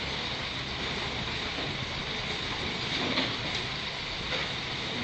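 Engine of an old crawler piling crane running steadily, a rattling mechanical drone with a hiss on top and a couple of faint metallic squeaks.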